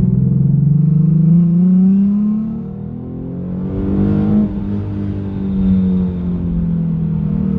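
Car engine pulling under acceleration, its pitch climbing, easing off about three seconds in, then rising again and holding steady.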